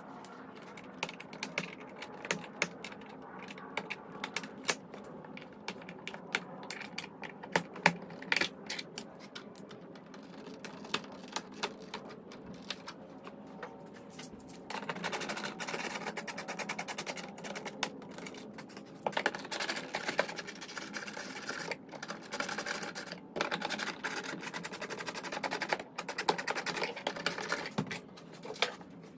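Rapid clicking and rattling of hand tools and plastic door trim as a truck's front door panel and handle are taken apart. About halfway through, the clicks turn into a dense, fast, steady run.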